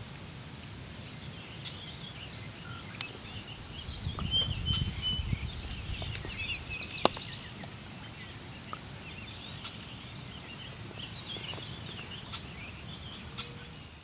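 Outdoor ambience of many small birds chirping and twittering over a low rumble that swells briefly in the middle, with a few sharp clicks.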